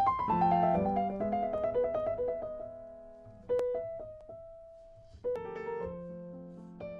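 Background piano music: a melody over held chords that fades down about halfway through, then picks up again with new chords.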